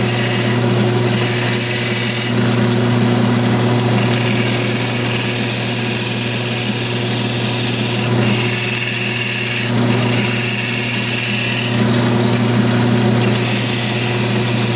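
Wood lathe running at speed, a steady motor hum, with a hand-held gouge cutting a small wooden spindle. The hiss of the cut comes and goes in passes every few seconds as the tool shapes the piece.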